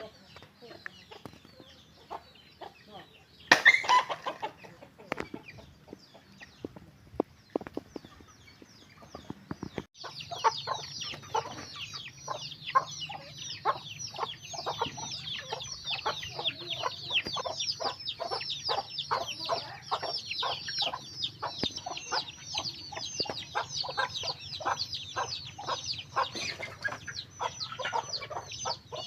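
Chickens clucking, with one loud squawk about four seconds in. From about ten seconds in, a dense chorus of chicks peeping takes over: many short, high, falling chirps a second.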